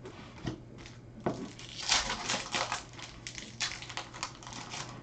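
Baseball trading cards being handled and flipped through by hand: card stock sliding and flicking against itself in quick runs of crisp rustles, after two light taps.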